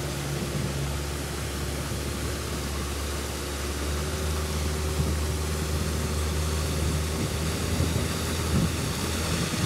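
Outboard motor of a small boat running steadily, a low even drone over a constant hiss.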